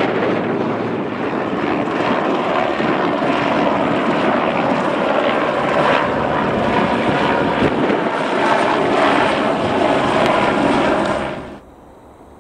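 Aircraft flying low and close overhead, a loud steady noise of engine and propeller that cuts off abruptly about a second before the end.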